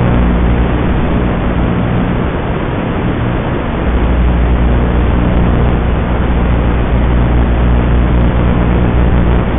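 FPV quadcopter's motors and 5-inch propellers buzzing under changing throttle, buried in steady hiss and heard with a muffled, band-limited quality. The sound dips slightly about two to four seconds in.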